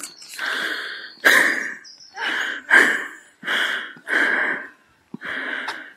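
A person breathing hard close to the microphone while walking, with about eight quick, heavy breaths in a steady rhythm.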